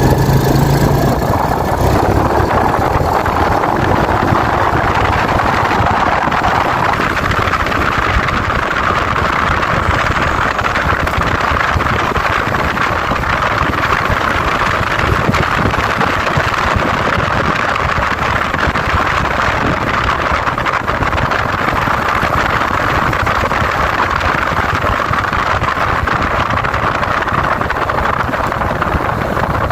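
Yamaha Vega New motorcycle being ridden: a low engine note in the first second gives way to a steady rush of engine and wind noise that builds over the first several seconds, then holds steady as it cruises.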